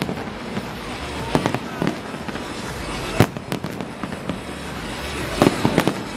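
Display fireworks bursting overhead: a steady crackling wash broken by sharp bangs, a couple about a second in, one about three seconds in and a quick cluster near the end.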